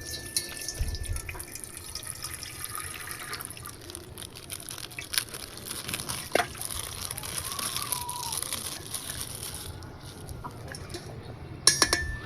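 Water sloshing and dripping as toys are handled in coloured water, with small scattered clicks and a quick cluster of sharp clicks near the end.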